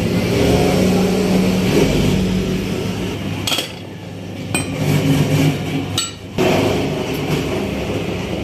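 Steel crankshaft parts and ball bearings clinking and knocking as they are handled and fitted, over a steady low mechanical hum. A few sharp knocks come in the middle, each followed by a brief drop in the hum.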